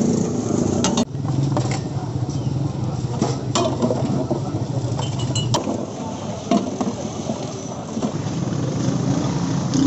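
A steel ladle scooping and pouring pomegranate juice, with occasional sharp clinks against the steel pots. Behind it is steady street-market noise with a low motor-like hum and voices.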